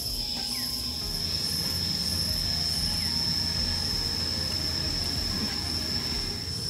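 Insects in tropical woodland: a steady high-pitched drone with a faint pulsing chirp above it, over a low rumble that swells and then eases near the end.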